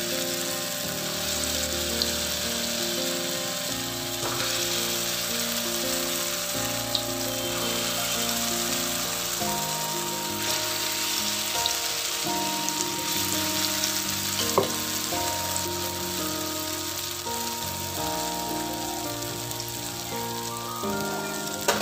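Masoor dal pakoras deep-frying in hot oil in a kadhai: a steady sizzle with a few sharp clicks. Soft instrumental music plays underneath.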